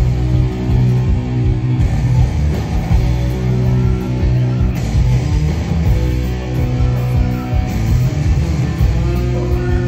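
Rock band playing live and loud: distorted electric guitar and bass chords over a driving drum beat, the chords changing every second or two.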